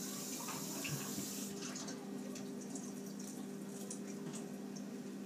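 Water running from a tap, faint, for about a second and a half, then a few light clicks and knocks. A steady low hum runs underneath.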